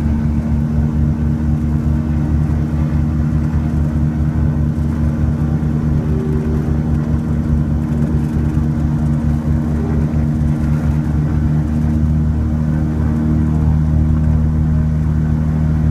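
Twin piston engines and propellers of a Piper Seneca V running steadily, heard from inside the cabin as a deep, even drone that holds one pitch while the plane taxis on the airstrip.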